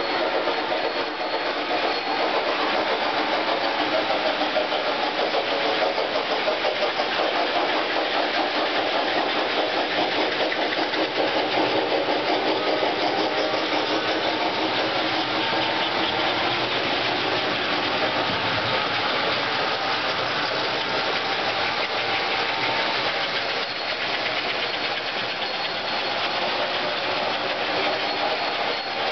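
American Flyer model trains running on the layout: a steady mechanical whir from their electric motors and wheels on the track, its pitch drifting slightly as the speed changes.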